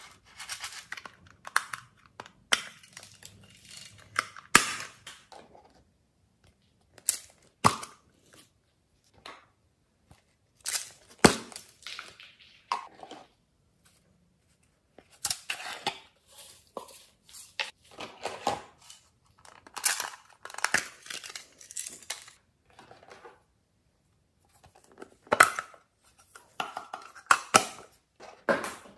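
Small plastic containers being handled, opened, tapped and shaken to empty glitter and sequins onto slime: irregular bursts of clicks, knocks and rattling with short silent pauses between.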